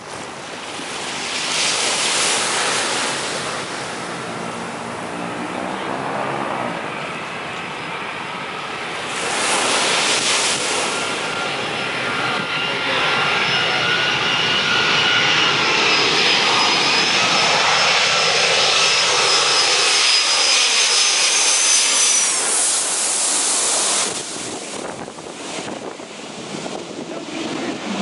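Boeing 757's twin jet engines on a low final approach, a loud roar that builds as it comes over. Its high engine whine bends down in pitch as it passes overhead, and the roar drops off sharply near the end.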